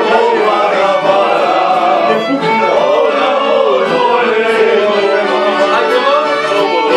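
Violin played live at close range, its melody gliding and wavering, with men's voices singing along.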